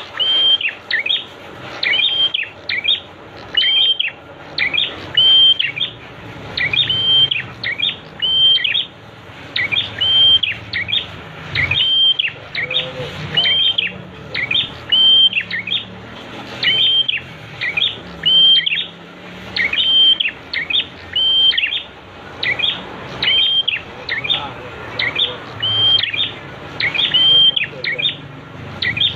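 Prinia (prenjak) song: a steady, unbroken series of short, sharp chirps, about two a second, over a background of flowing water.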